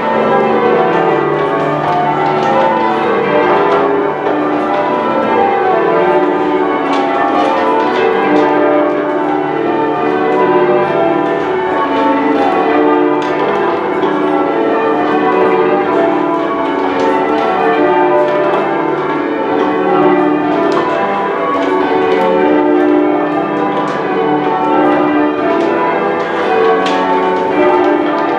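A ring of ten church bells being change rung, the strikes following one another in a steady overlapping stream with a long ring after each.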